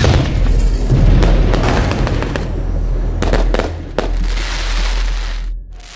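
Fireworks bursting and crackling, with several sharp cracks over a low steady drone; it all cuts off suddenly near the end.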